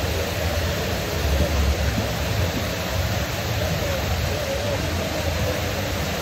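Water pouring steadily over a small rock waterfall fountain, an even splashing rush.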